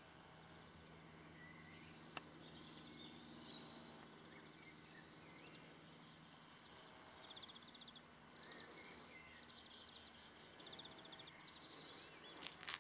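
Near silence: quiet outdoor air with faint bird chirps and short trills, and a single sharp click about two seconds in.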